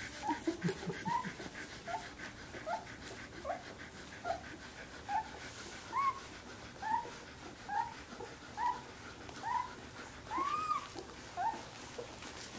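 A 17-day-old Samoyed puppy whimpering in short, high squeaks, each rising and falling, about one a second, with a longer whine near the end.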